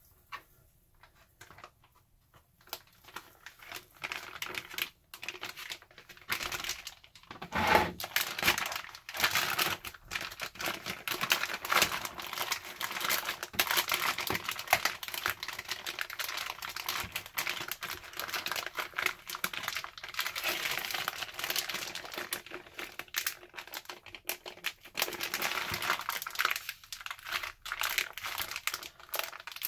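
Plastic zipper freezer bag crinkling and rustling as a steak is slid into it and the bag is pressed and sealed, starting a few seconds in and easing off near the end.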